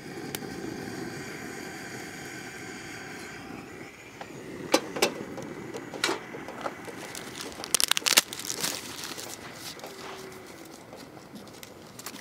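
Gas torch jetting with a steady hiss for about three seconds as the fire is lit, then a run of sharp clicks and knocks, thickest around eight seconds in.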